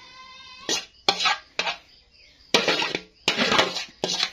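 A ladle scraping and knocking against a metal pot in about six quick strokes, scooping thick sago and palm-sugar ongol-ongol batter out into a tray.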